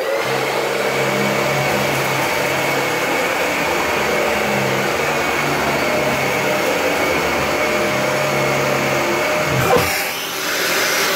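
Dyson DC41 upright vacuum cleaner switched on and running steadily. Near the end there is a sharp knock, after which its sound changes.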